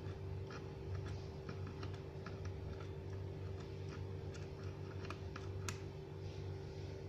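Typing on the ASUS X453M laptop's keyboard: irregular key clicks, a few a second, over a steady low hum.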